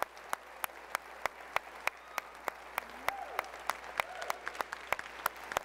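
One person clapping hands at a steady pace, about three sharp claps a second.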